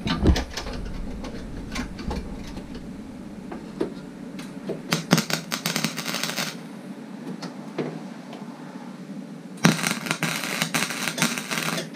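MIG welder arc crackling on thin door sheet steel in two bursts: one about five seconds in lasting a second and a half, and a longer one of about two seconds near the end. Light handling clicks come before the first burst.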